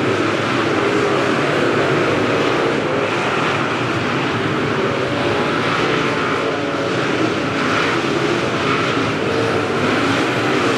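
Dirt late model race cars' V8 engines running hard around a dirt oval, a loud, steady drone.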